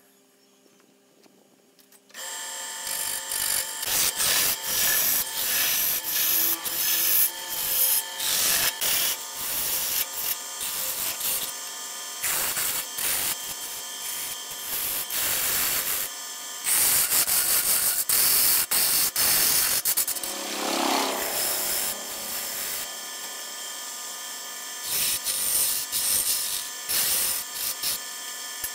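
Turning chisel cutting a large hardwood cylinder spinning on a wood lathe: a loud, noisy cutting sound that swells and eases irregularly as the tool is pressed in. It starts abruptly about two seconds in.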